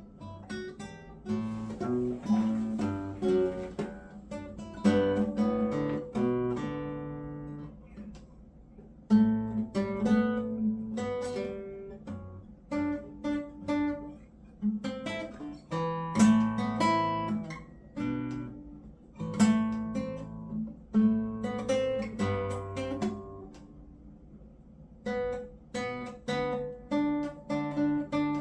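Acoustic guitar played live: picked single notes and chords in phrases, with a couple of short pauses between them.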